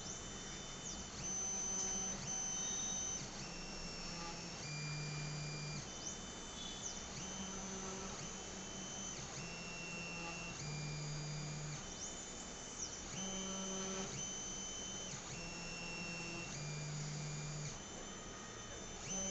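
Anycubic Chiron 3D printer's stepper motors whining as the print head travels from point to point during automatic bed levelling. It is a string of steady tones, each held for about a second at a different pitch, sliding briefly up at the start of each move and down at the end.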